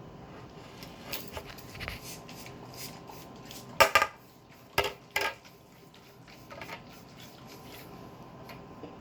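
Hard objects clinking and knocking against each other in a small room, a scatter of light clicks with a few louder knocks about four and five seconds in.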